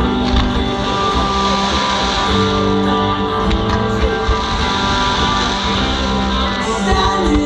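Music with a strummed guitar playing steadily, with sustained chords throughout.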